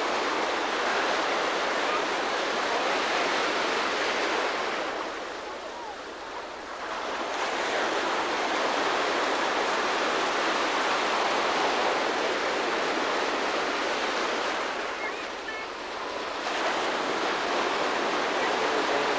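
Ocean surf breaking and washing close by: a steady rush of white water that eases off twice, about five seconds in and again about fifteen seconds in, before the next waves build.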